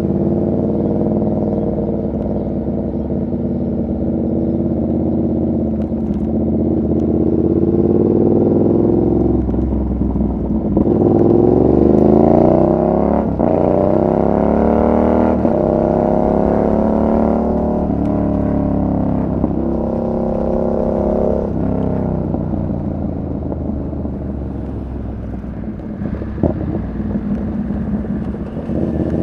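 2019 Yamaha MT-07's 689 cc parallel-twin engine on the move: running steadily, then accelerating about halfway through with rising revs broken by short dips at each upshift, then revs falling as the throttle is rolled off, settling back to a quieter steady run near the end.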